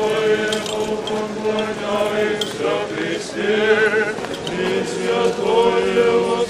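Group of voices singing an Orthodox church chant in long, sustained notes, with a steady low note held beneath the melody.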